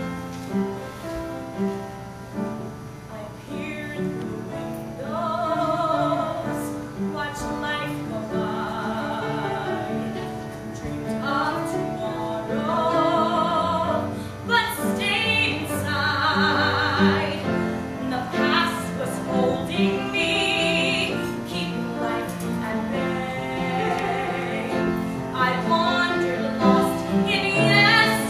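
A girl singing a musical-theatre solo with a wide vibrato, over instrumental accompaniment.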